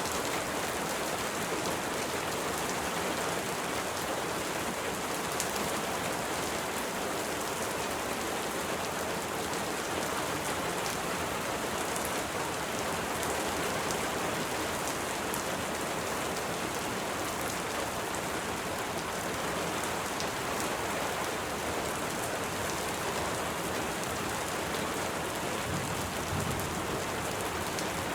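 Steady, even rainfall, the patter of many drops hitting a surface, with a faint low rumble near the end.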